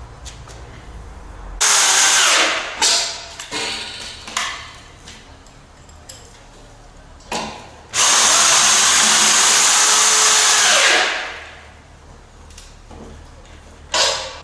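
Power drill running in bursts: a short run about two seconds in, a few brief blips, then a steady run of about three seconds that winds down as it stops.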